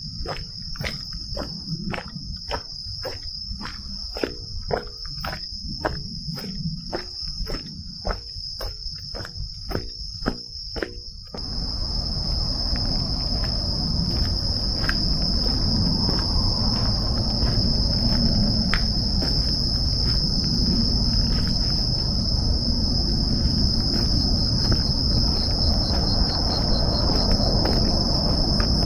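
Night insects chirping in a steady high-pitched chorus. For the first eleven seconds or so, footsteps sound about two a second; then a louder low rumble of noise comes in suddenly under the insects.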